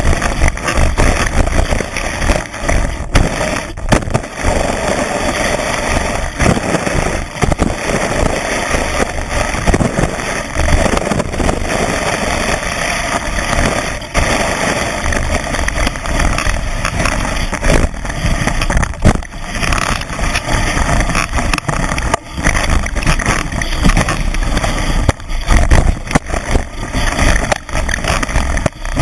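Skis running fast through deep powder snow, heard from a camera mounted on the ski: a loud, continuous rush of wind and snow over the microphone with a heavy low rumble. Frequent bumps and brief dips break it up as the ski hits the snow.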